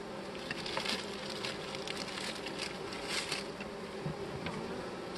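Swarm of honey bees from a freshly installed package buzzing steadily around an open hive. A plastic bag of fondant crinkles in hand a few times, loudest about a second and about three seconds in.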